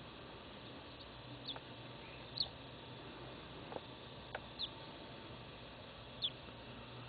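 A bird chirping: four short, high calls, each dropping slightly in pitch, spaced a second or two apart over a steady faint hiss, with a few faint clicks.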